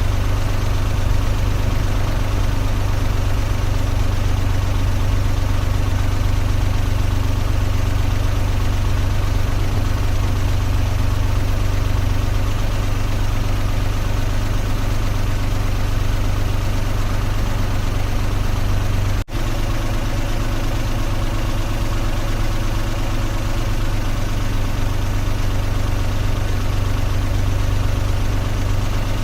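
Car engine idling steadily with a deep, even hum, broken by a momentary dropout about two-thirds of the way through.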